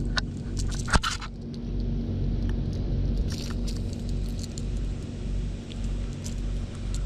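Small sharp clicks and light metallic rattling from a gold Rattle-Trap lipless crankbait, its treble hooks and internal rattles, as it is worked free of a bass's mouth, with one louder click about a second in. A steady low rumble sits underneath.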